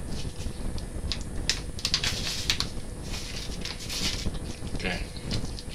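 Irregular crackling and rustling of a small foil packet being squeezed and shaken out over a raw catfish, with wet handling of the fish.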